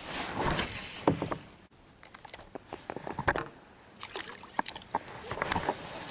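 A string of small knocks and clicks from fishing gear being handled on a fishing kayak, over a faint wash of water.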